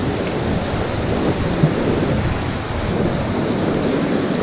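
Fast river water rushing steadily, an even noise of flowing current.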